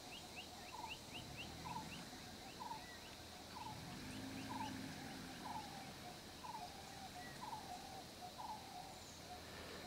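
A bird calling over and over, one short call about every second, faint against a steady high whine. A low hum rises and fades briefly in the middle.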